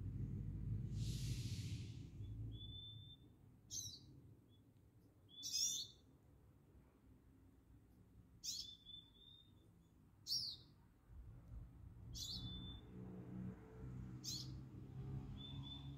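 Small songbird calling over and over: short, sharp, high notes that sweep down, about one every two seconds, several trailing into a brief steady whistle. A short hiss sounds about a second in.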